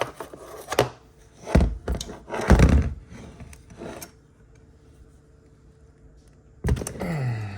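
A series of knocks and clunks of tools and metal on the Honda CR250 cylinder as heated head studs are worked out, the heaviest thuds about a second and a half to three seconds in. Near the end there is a short low vocal sound that falls in pitch.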